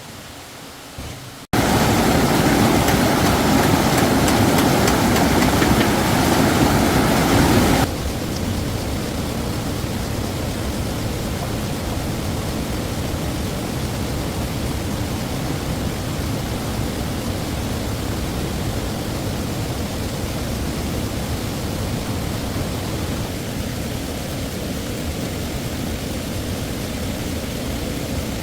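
Rushing stream water, a steady roar of noise. It jumps loud abruptly about a second and a half in and drops back somewhat at about eight seconds, then holds steady.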